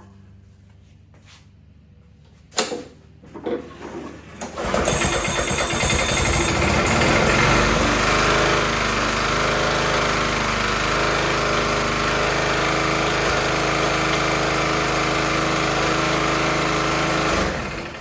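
Yard Machines push mower's Briggs & Stratton engine being pull-started: a couple of coughs about three seconds in, then it catches and runs steadily for about thirteen seconds before shutting off near the end.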